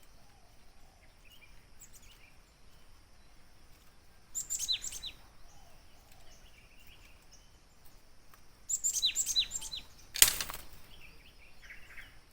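Gelatik birds calling: two short runs of rapid, sharp, high chirps, each note falling quickly in pitch, about four seconds in and again near nine seconds. Just after the second run comes one brief loud rustle or flap.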